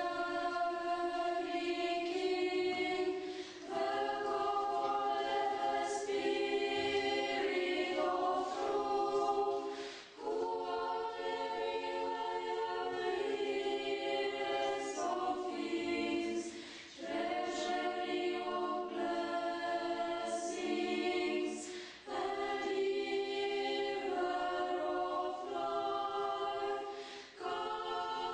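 A choir of girls singing a cappella in harmony, long held chords in phrases of about five to six seconds with short breaks for breath between them.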